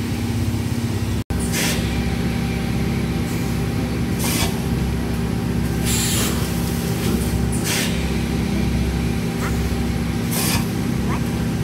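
Pulp tableware forming machine running with a steady drone, with about five short hisses.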